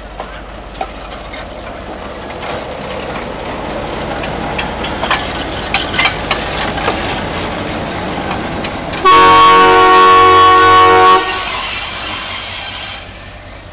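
General Motors-built Sri Lanka Railways Class M2 diesel-electric locomotive running light past at close range, its engine and running gear rumbling with sharp clicks of the wheels over the rail joints. About nine seconds in, it gives a loud horn blast of about two seconds. The rumble fades as the locomotive pulls away.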